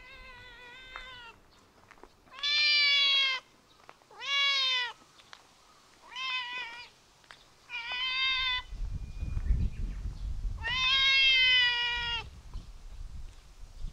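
Domestic cat meowing again and again: about six drawn-out meows, each roughly a second long, with the last one the longest.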